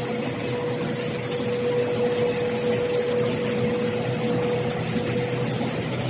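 A4 paper production line running: a steady machinery drone with a constant mid-pitched hum and a hiss as the paper web feeds over the rollers.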